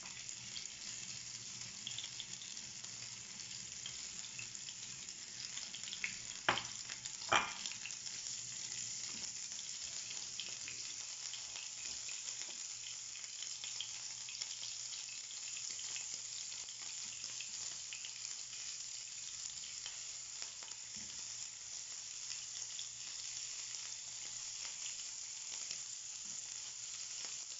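Marinated chicken pieces sizzling in hot olive oil in a nonstick frying pan as more pieces are laid in, a steady hiss throughout. Two sharp clicks close together about a quarter of the way in stand out as the loudest sounds.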